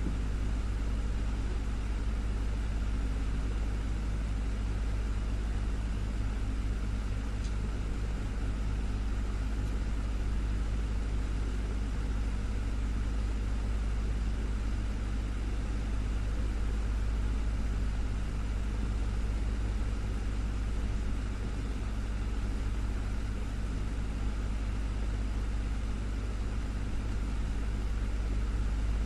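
Desktop fan running steadily: a low motor hum with a constant rush of moving air.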